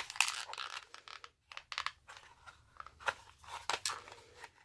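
Hard plastic clicking and scraping, irregular and fairly quiet, as a stuck removable bulk-storage insert is worked at in a Milwaukee Shockwave bit case: the insert is jammed and won't pull out.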